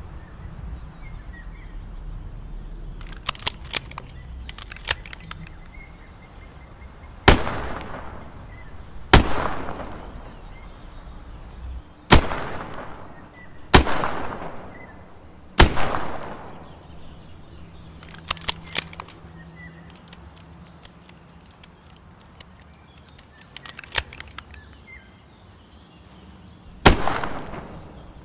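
Smith & Wesson 360J .38 Special revolver firing: five shots a second or two apart, each followed by a short echoing tail, then a single further shot after a pause of about ten seconds. Light clicks come in between the shots.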